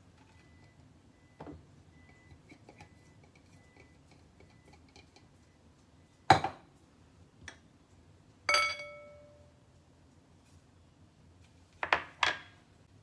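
Glassware clinking against a glass mixing bowl: a sharp clink about halfway through, a second strike that leaves the glass ringing briefly, and two quick clinks near the end.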